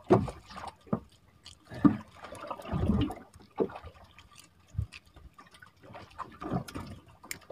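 Irregular wet knocks, slaps and rustles as a freshly caught ketambak is handled and unhooked in a small wooden boat, with a longer scuffle about three seconds in.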